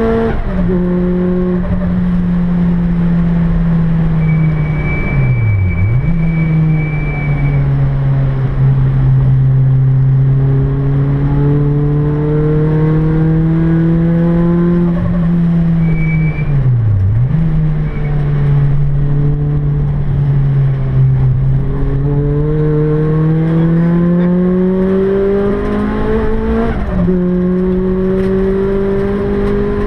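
Supercharged Toyota Celica 2ZZ-GE 1.8-litre four-cylinder engine under hard track driving, heard from inside the cabin, its pitch rising and falling with the revs. Twice, about six and seventeen seconds in, the revs dip sharply and recover, and a faint high whistle sounds for a few seconds from about four seconds in.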